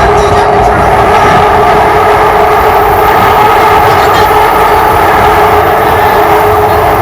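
Shenzhen Metro Bombardier MOVIA 456 metro train running at a steady speed: a loud, even rumble with a steady hum of two held tones above it.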